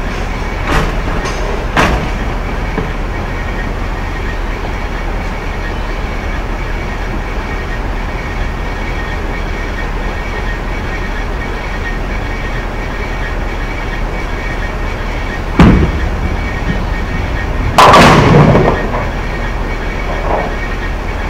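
Bowling ball released onto the lane with a sharp thud, then crashing into the pins about two seconds later, the loudest sound, over the steady rumble of a bowling alley. Two lighter knocks sound in the first two seconds.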